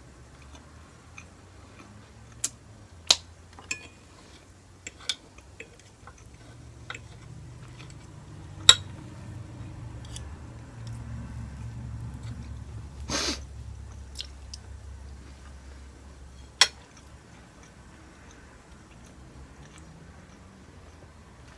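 Eating sounds: chewing of pasta bake and crumbed baked fish, broken by a scattering of sharp clicks. The loudest click comes about nine seconds in, and a short noisy burst about thirteen seconds in.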